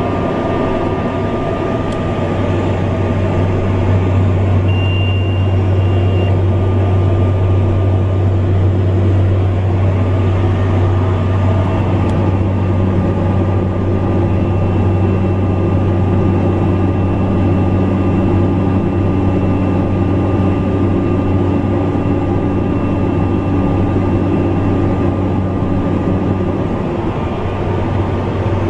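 Steady drone of a small propeller aircraft's engine and propeller, heard from inside the cockpit on approach to landing. A faint high tone comes and goes over it.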